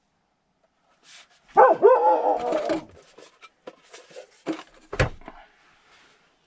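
A short, pitched, wavering cry about a second and a half in, followed by light handling clatter and a single sharp knock about five seconds in.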